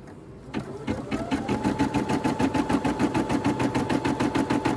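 Brother NV180 embroidery machine starting up: a click, then its motor comes up with a rising whine that settles to a steady pitch over a rapid, even rhythm of needle stitches as it begins stitching the outline of the design.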